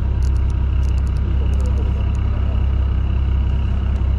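Fishing boat's engine idling while the boat drifts: a steady low rumble with a constant hum above it and a few faint high clicks.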